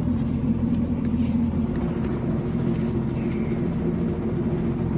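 Farm tractor's engine running at a steady speed beside a hay baler.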